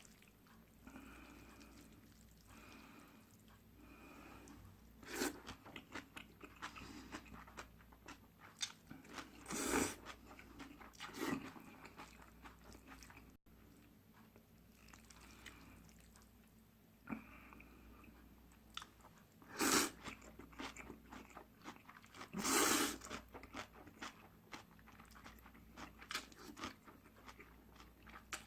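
Close-miked eating sounds: a person chewing instant noodles, with many small wet mouth clicks and several louder, second-long slurps spread through.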